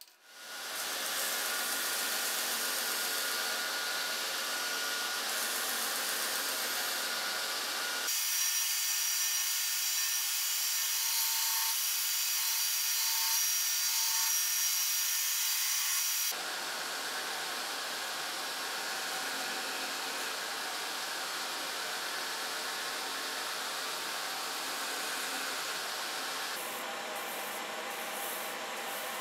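A bandsaw motor spins up and runs while cutting a stabilized walnut knife handle, followed by an AmeriBrade belt grinder running and sanding the handle. The sound changes abruptly about 8, 16 and 27 seconds in as one clip gives way to the next.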